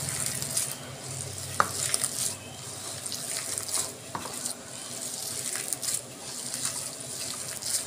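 Hands kneading a damp dough of washed poha, curd and semolina in a bowl: an irregular wet rustling and squishing, with a couple of light clicks.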